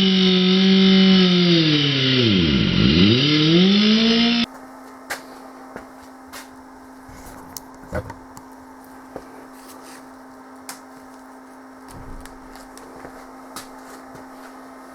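A power tool's electric motor running loud, its speed sagging deeply about two and a half seconds in and picking back up, then cutting off abruptly. After that, a faint steady hum with scattered light taps and clicks.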